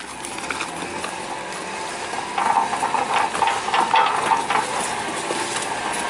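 GuardPro E-Series watertight case towed behind a moving vehicle, scraping and clattering continuously over dirt and asphalt in a rough noisy rush full of small knocks.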